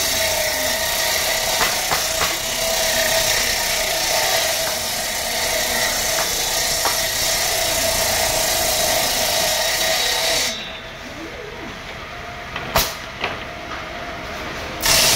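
Circular saw blade on a homemade saw bench spinning and cutting through wooden pallet boards, a steady whine under the loud noise of the cut. About ten seconds in the cut ends and the blade runs free and quieter, with one sharp knock a couple of seconds later, then bites into wood again near the end.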